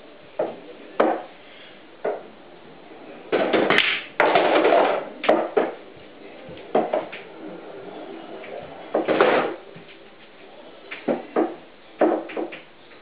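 Irregular knocks and clacks from pool balls and cue around a pool table, some sharp and short, a few louder and longer, with quiet gaps between.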